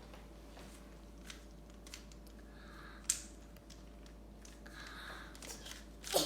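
A 3x3 Rubik's cube being twisted by hand: its plastic layers scrape and click, with sharper clicks about three seconds in and near the end. These are the last turns that complete the solve.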